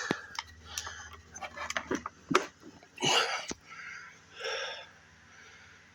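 Power cord being plugged into a 12-volt portable fridge: a string of sharp plastic clicks and knocks from the plug and socket, with two short rustling bursts of handling near the middle.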